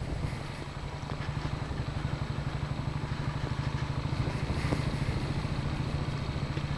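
Royal Enfield single-cylinder motorcycle engine running under way on a dirt track, its exhaust pulsing steadily and getting gradually louder as it picks up.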